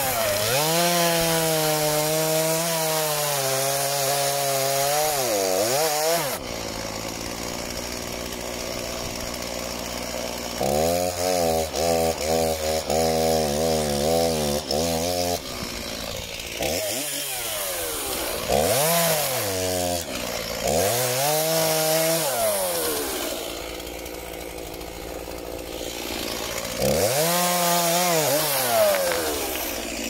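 Stihl MS 231 two-stroke chainsaw revving and cutting wood, its pitch sagging under load and recovering. It drops back to idle between several short cuts, with one stretch of fast stuttering throttle in the middle.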